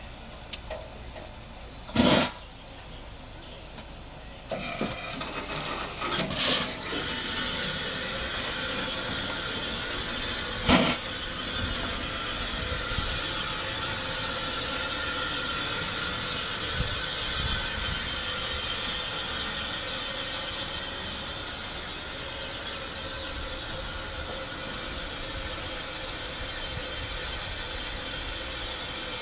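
Steady hiss of steam from a 10¼ inch gauge Hunslet quarry-type steam locomotive standing in steam, growing fuller after about five seconds. Two short, loud bursts stand out, about two seconds in and again near eleven seconds.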